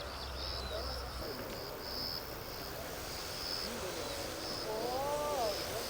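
Insects chirping in short, high-pitched pulses repeated over and over, over a steady outdoor background of distant murmuring voices; a brief drawn-out vocal sound rises and falls near the end.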